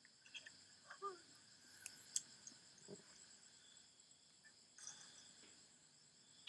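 Near silence with faint, steady, high-pitched insect chirping and a few faint clicks.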